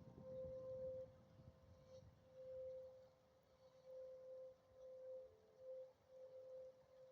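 Faint tornado warning siren sounding one steady tone, its loudness swelling and fading every second or so.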